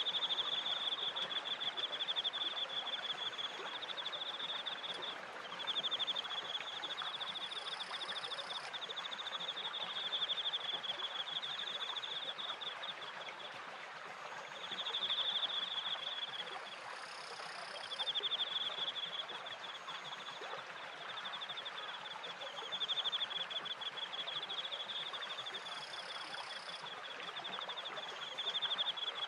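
A cricket trilling: a fast, high-pitched pulsed chirp held almost without pause, broken by a few short gaps. Under it runs the steady rush of flowing water from the turning water wheel and the stream.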